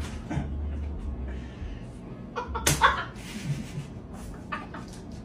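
A sharp slap or smack about two and a half seconds in, with a brief voice-like yelp around it and a fainter smack shortly after the start.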